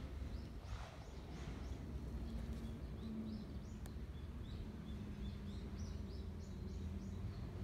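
Small birds chirping in short, repeated calls over a steady low rumble of background noise.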